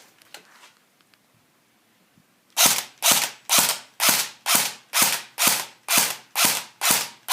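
Airsoft M4 rifle firing single shots in semi-auto, about two a second, starting about two and a half seconds in after a quiet spell.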